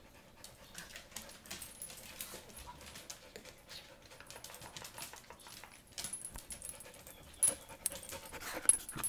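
A dog panting and moving about, with irregular rustling and clicking and two sharp clicks in the last couple of seconds.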